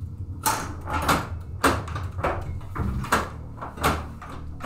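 Pinball machine in play, a 1981 Stern Lightning: a run of sharp mechanical clacks and knocks from the flippers, bumpers and ball strikes, about seven in all at uneven half-second gaps, over a low steady hum.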